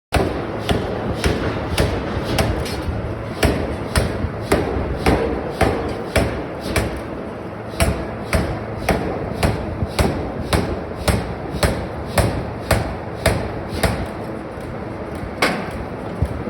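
Bearing-ring forging machinery: sharp metallic knocks repeating evenly about twice a second over steady machine noise.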